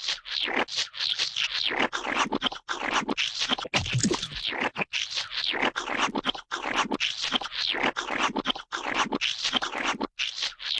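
Cartoon sound effect: a rapid, irregular run of short scratching and scraping strokes, with brief gaps between them.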